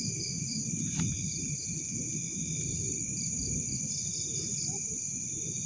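Night insects, crickets among them, trilling steadily at a high pitch with pulsing chirps, over a low rumbling background noise; a single sharp click about a second in.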